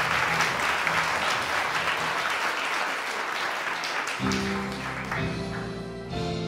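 Applause dying away over about four seconds. Sustained instrumental chords then come in, opening a gospel song.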